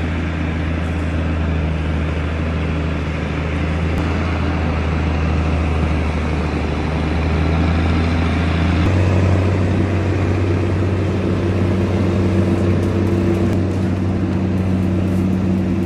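Large engine running steadily under load, its pitch stepping up slightly about nine seconds in.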